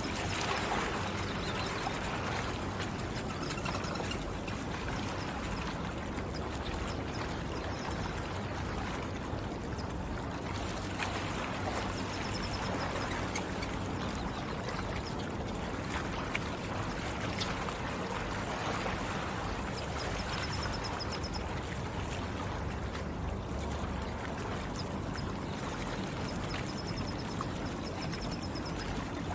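Lakeshore water trickling and lapping steadily at the water's edge, with a few faint, quick bird trills now and then.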